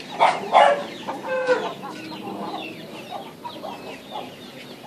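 A dog barks twice near the start, then a Kamalia Aseel game rooster clucks in a run of short calls.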